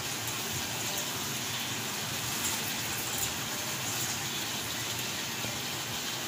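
Washed, drained basmati rice poured from a steel bowl into a pot of cooked-down chicken and potatoes, the grains falling in a steady, even hiss.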